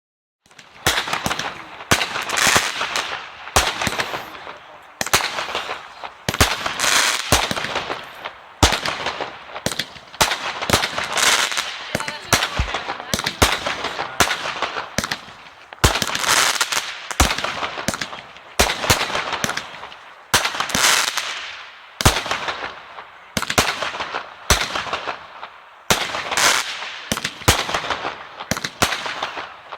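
Fireworks display: a fast, continuous run of loud sharp bangs, new ones every second or so, each trailing off over a second or two before the next bursts.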